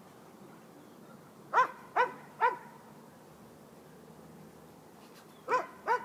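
A dog barking: three short barks in quick succession, then two more near the end.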